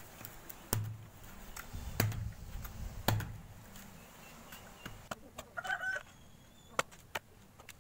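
A blade knocking against a coconut, three hard blows about a second apart, then two sharp chops near the end as a machete cuts into coconut husk. A chicken clucks briefly about six seconds in.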